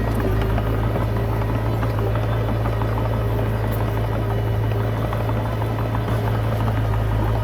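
Komatsu D20P bulldozer's diesel engine running at a steady working speed, a constant low drone with light clatter over it.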